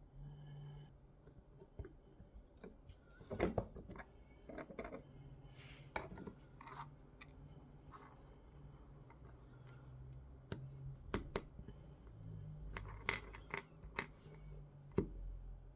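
Irregular sharp clicks and taps with short scrapes and rustles: small tools, brass heat-set inserts and 3D-printed plastic parts being handled and set down on a workbench, over a faint low hum.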